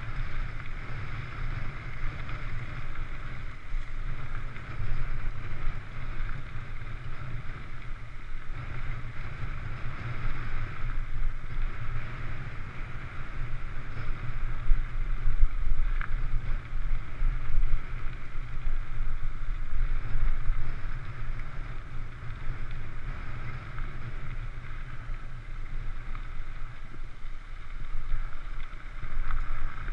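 Wind buffeting a GoPro action camera's microphone over the steady rumble of mountain bike tyres rolling on a gravel trail at speed.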